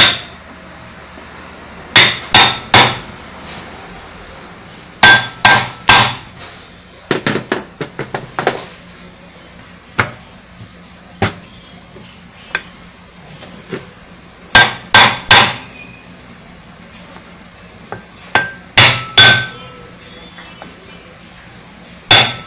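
Sharp knocks as the cover of an electric orange juicer is tapped down into place with small wooden blocks. Most come in quick sets of three a few seconds apart, with lighter single taps in between, until the cover seats.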